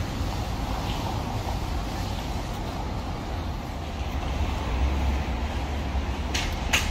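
Steady low rumble of city traffic heard outdoors, with two short bursts of hiss near the end.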